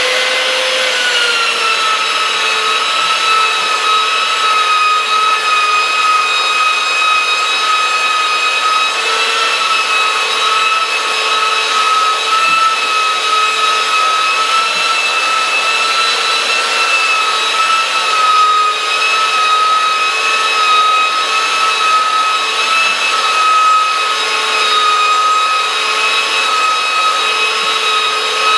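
Skil handheld belt sander with an 80-grit belt running steadily while sanding the face of a cedar board along the grain: a steady motor whine over the rasp of the belt on the wood.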